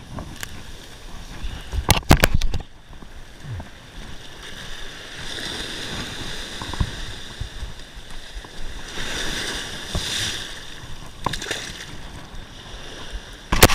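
Ocean surf washing on the beach, a steady rush that swells twice in the middle. Sharp knocks and handling bumps about two seconds in and again near the end.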